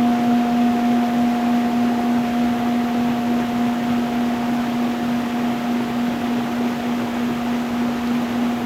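A singing bowl's low tone rings steadily, with a fainter higher overtone, over the continuous rush of a stream flowing over stones.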